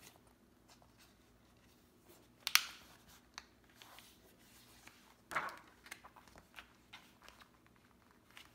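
Paper inserts and a vellum sheet being handled and slid into a traveler's notebook: soft rustles and light taps, with a sharp paper crinkle about two and a half seconds in and another rustle just past five seconds.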